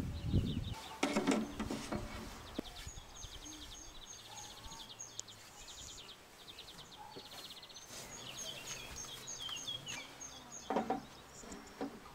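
Small birds singing outdoors: repeated runs of short, high chirps and quick trills, with a few brief rustling strokes about a second in and again near the end.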